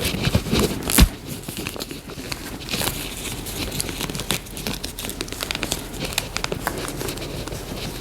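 Close handling noises as stretchy doll pants are worked onto a plastic Barbie Made to Move doll: irregular rustling, small clicks and taps, with one sharper knock about a second in.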